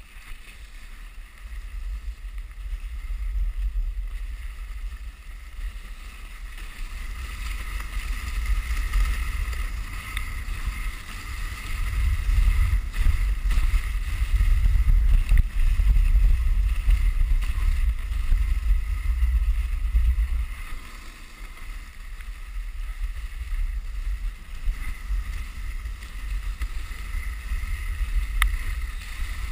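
Dog sled running over packed snow: the runners sliding along the trail under a steady rumble of wind on the microphone, which grows heavier in the middle and eases off a few seconds later.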